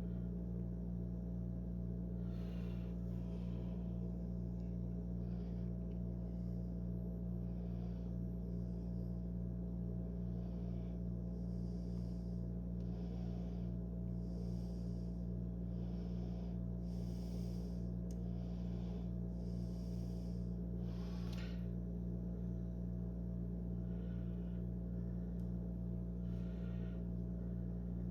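Steady low electrical hum with a faint higher tone above it, unchanging throughout, with faint soft hisses coming and going every second or two.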